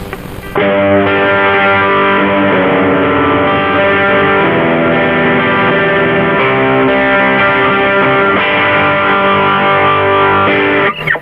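Electric guitar played through a JOYO Deluxe Crunch distortion pedal: distorted chords ringing out and changing every second or so. They start about half a second in and stop suddenly near the end.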